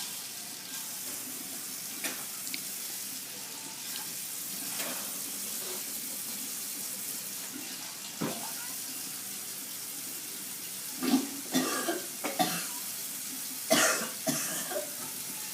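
A person coughing, his throat irritated by ground cinnamon from the cinnamon challenge: one cough about halfway, then two bursts of several harsh coughs near the end, over a steady hiss.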